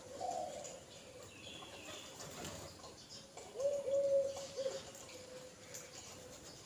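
Soft, low cooing bird calls: a short call near the start, then a cluster of short arched notes about three and a half seconds in. Light taps of beaks pecking food on concrete are heard among them.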